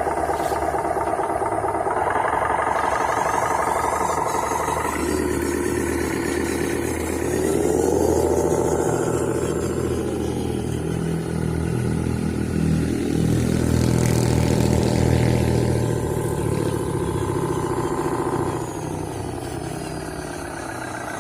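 Radio-controlled model truck driving, its engine-like drive sound rising in pitch as it speeds up and falling as it slows, twice over.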